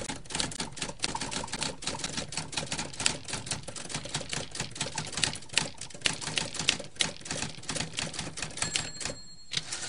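Typewriter keys striking rapidly, one clack after another, with a short ring near the end.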